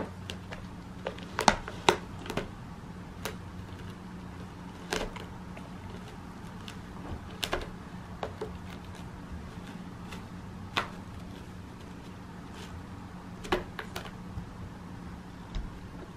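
Scattered light clicks and taps at irregular intervals as a cat bats and grabs at a feather toy on an artificial-grass scratcher, over a steady low hum.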